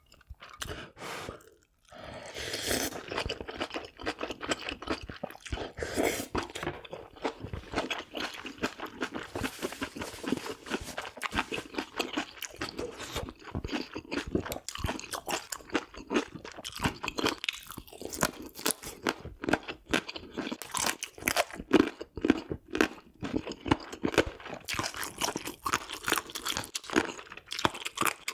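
Close-miked chewing of pork offal: a dense, steady run of sharp wet clicks and crunches starting about two seconds in.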